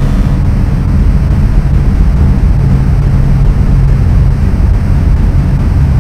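Loud, steady low rumbling drone, mostly deep bass with a noisy, engine-like or wind-like texture and little in the upper range.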